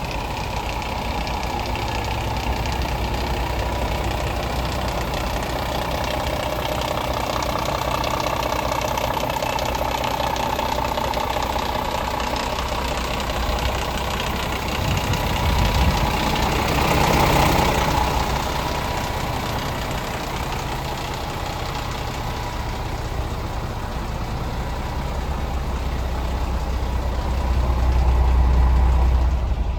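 Scania R410 truck's diesel engine idling steadily, swelling louder briefly about halfway through and again near the end.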